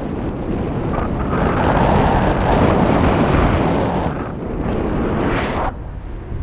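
Airflow buffeting the camera microphone in paraglider flight: a loud, steady rush of wind noise. About five and a half seconds in it drops abruptly to a quieter low rumble.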